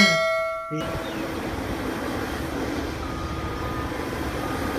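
A bright ding rings and fades within the first second, then a steady machine rumble with a faint hum sets in: a bulldozer engine sound effect.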